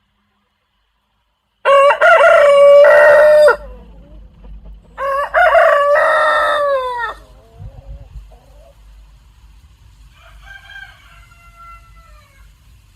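Rooster crowing: after a second and a half of silence, two loud, long crows a few seconds apart, then a much fainter crow near the end.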